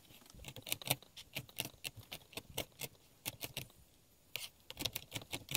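Kitchen knife chopping sun-dried tomatoes and pumpkin seeds on a plastic cutting board: quick, uneven strikes of the blade on the board, about three or four a second, with a brief pause about four seconds in.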